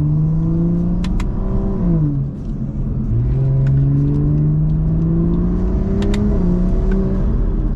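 BMW 340i's turbocharged B58 inline-six, through an axle-back exhaust with both resonators deleted, pulling through the gears. The engine note climbs steadily, drops at an upshift about two seconds in, climbs again and drops at another upshift a little after six seconds. Sharp clicks from the steering-wheel shift paddles come just before the shifts.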